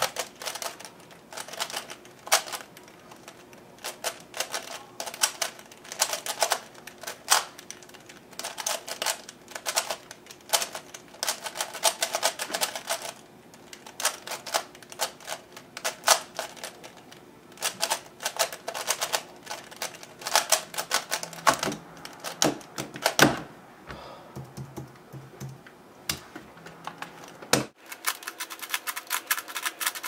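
An FII 3x3 speedcube lubricated with shock oil, turned fast with one hand: rapid plastic clicking and clacking in bursts with short pauses between groups of moves. About 23 seconds in, a sharper knock as the solve ends, followed by a quieter spell and a few softer clicks.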